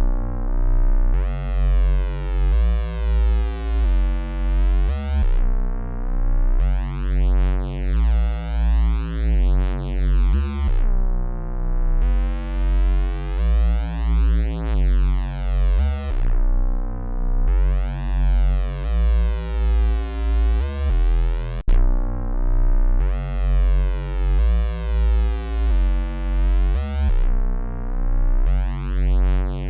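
Dark synthesizer bassline loop at 88 bpm: deep bass notes stepping between a few pitches, pulsing about one and a half times a second, its tone brightening and darkening in slow sweeps. The pattern repeats about every eleven seconds.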